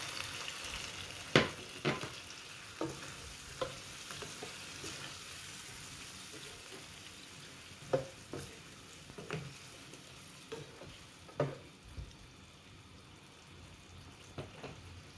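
Sardine and chayote stew sizzling in a frying pan just after water is added, the sizzle slowly dying down, while a ladle stirs it and knocks against the pan a dozen or so times.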